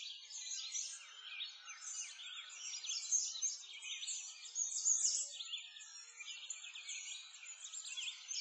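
A chorus of many small songbirds chirping, with dense overlapping high-pitched calls and no pause.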